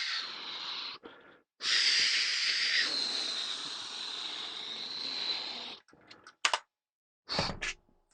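Breathy whooshing hisses made by mouth as spaceship 'swoosh' noises while the toy starfighter is flown through the air: a short one ending about a second in, then a longer one lasting about four seconds, followed by a few short clicks.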